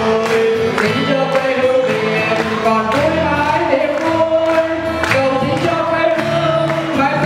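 A mixed group of men, women and children singing a slow song together in Vietnamese, holding long notes.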